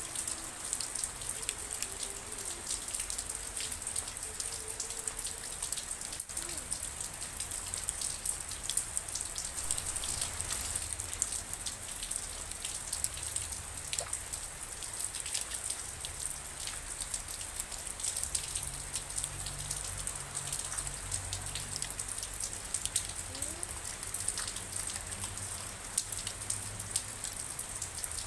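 Steady rain falling, with many individual drops tapping on a surface in a constant patter.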